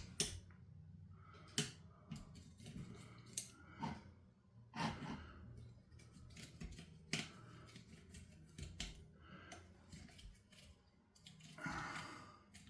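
Scattered light clicks and clinks of hand tools and small metal parts being handled on a chainsaw being taken apart, with a few sharper knocks spaced irregularly through.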